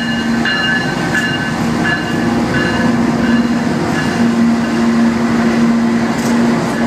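Train rolling slowly past along a street: a steady rumble and low hum, with a short ringing ding repeating about every 0.7 s that fades out about four seconds in.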